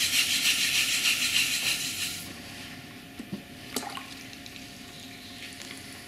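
Wet hands rubbing and squelching on slip-covered clay spinning on a potter's wheel, a wet swishing that stops suddenly about two seconds in. After that there is a faint steady hum with a couple of light clicks.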